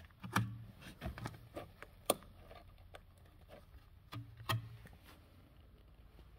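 A few light knocks and taps, with one sharp click about two seconds in, from a gloved hand and the camera handling against the rusted steel sill of a Ford Sierra.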